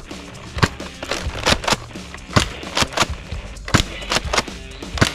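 A pump-action Nerf foam-dart blaster being primed and fired over and over: about ten sharp plastic clacks and pops at uneven spacing. Background music plays under them.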